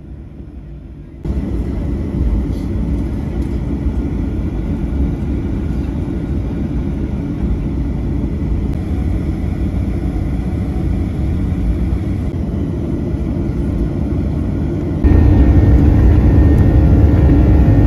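Boeing 737 jet engines heard from inside the passenger cabin, a steady low rumble while the plane taxis. About fifteen seconds in the noise steps up abruptly to a louder rumble with steady whining tones as the engines run at takeoff power for the takeoff roll.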